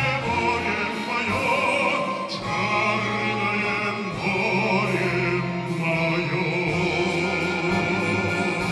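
A male soloist sings long held notes in an operatic style with vibrato, over a Russian folk orchestra: the closing phrases of the song's refrain.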